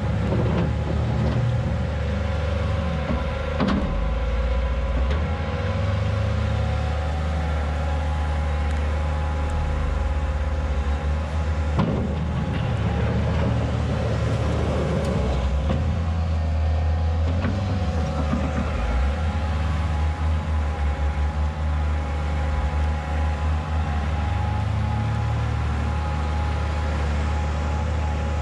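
Diesel engines of a wheel loader and a farm tractor running: a steady drone with a thin whine over it, the low end swelling now and then as the loader works its bucket.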